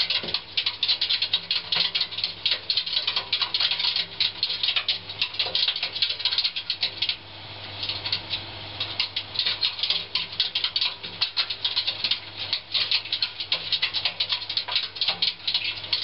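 A prairie dog's claws clicking rapidly on the perforated stainless-steel drum of a front-loading washing machine as it runs, turning the drum like a wheel, with the drum rattling. The clicking eases off for about a second around seven seconds in, then picks up again.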